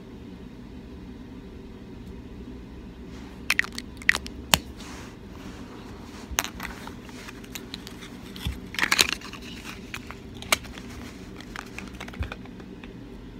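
Small cosmetic products handled close to the microphone: scattered sharp clicks, taps and crinkles as the items are turned in the fingers and set down, over a steady low hum. There are a few clicks about four seconds in and a busier cluster about nine seconds in.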